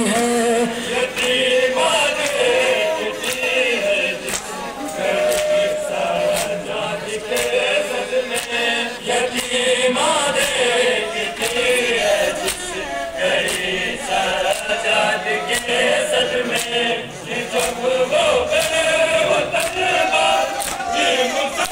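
Men chanting a Muharram nauha (mourning lament) together, with sharp slaps of hands on bare chests (matam) keeping time about once a second.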